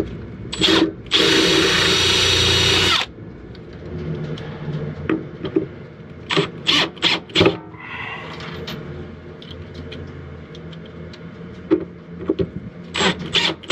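Makita cordless drill driving screws through a wine barrel's steel hoop into the wooden staves. A short burst comes first, then a steady run of about two seconds, then several short stop-start bursts in the middle and again near the end.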